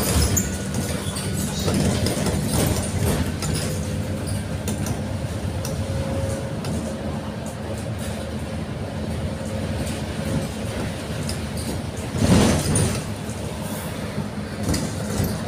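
Steady engine and road drone heard from inside a moving vehicle, with a louder rush about twelve seconds in.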